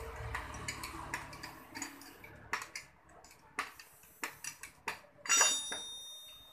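Metal hand tools clicking and clinking while working on a scooter engine: a run of short sharp ticks and knocks, then one louder metallic clink about five seconds in that rings on for about a second.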